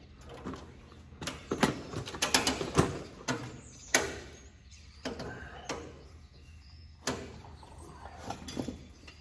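Irregular clinks, knocks and rattles of parts and tools being handled during a hands-on repair, with a sharp knock about four seconds in.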